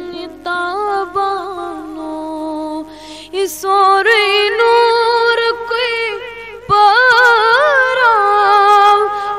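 A solo voice singing a Kashmiri Sufi song in a winding, ornamented melody. There are short breaks between phrases, and a louder phrase begins about seven seconds in.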